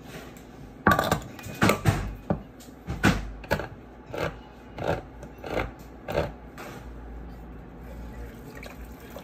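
Handheld crank can opener cutting around a can of coconut milk: a few knocks as the can is set down and the opener clamped on, then regular clicks about every two-thirds of a second as the crank turns. Near the end, the coconut milk pours quietly into a pot.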